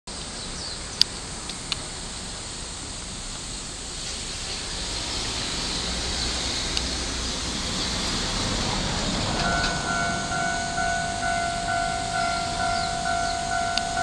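A steady hiss slowly grows louder. About two-thirds of the way in, a Japanese level-crossing alarm starts ringing, an electronic bell pulsing about twice a second, the warning that a train is approaching.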